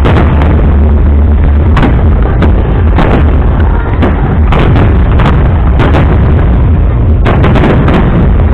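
Fireworks display: aerial shells bursting in a dense barrage, sharp bangs coming every second or less over a constant heavy low rumble.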